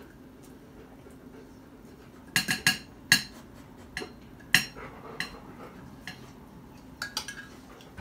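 Metal cutlery clinking and scraping on ceramic plates and serving dishes during a meal: a quick cluster of sharp clinks about two and a half seconds in, then scattered single clinks.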